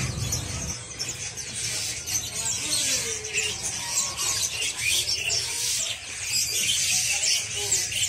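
Many caged songbirds chirping and squeaking at once, a dense chatter of short high-pitched calls.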